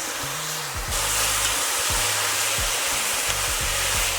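Rice vinegar and chopped aromatics sizzling in hot oil in a pot. The hiss grows louder about a second in.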